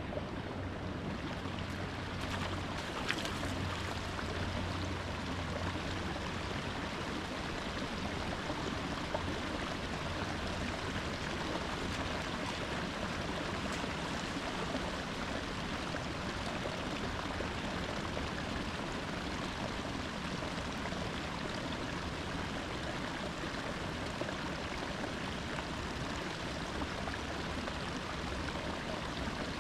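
Steady rushing water, an even, unbroken flow.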